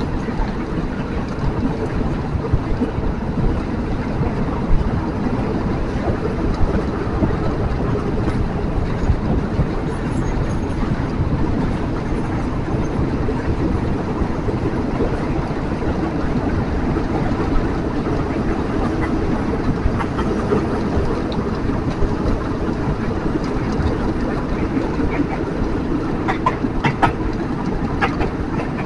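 Steady rumble of an INKA-built KRL KFW i9000 electric commuter train running alongside, heard from a moving motorcycle keeping pace with it.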